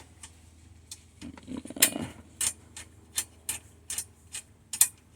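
A series of sharp, irregular clicks and light taps, about one or two a second, with a brief rustle about a second in: hands working on computer hardware.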